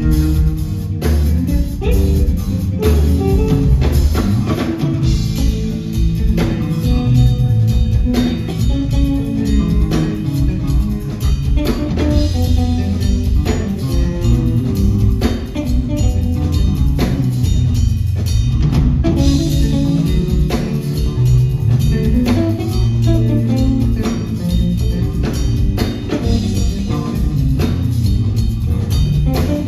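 Live electric bass guitar and drum kit playing together: quick-moving bass lines over a busy drum pattern with frequent strikes.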